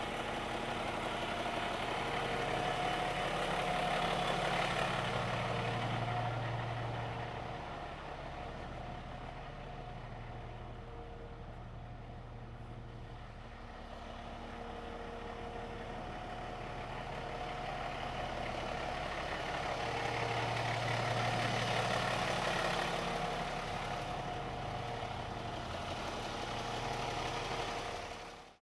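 Refuse truck engine idling steadily, swelling louder twice, then cutting off suddenly at the end.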